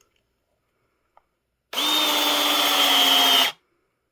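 Ryobi P660 18-volt cordless PEX cinch-clamp tool running one crimp cycle on a stainless cinch ring: its motor whines steadily for under two seconds, sagging slightly in pitch, then cuts off sharply. A faint click comes just before it.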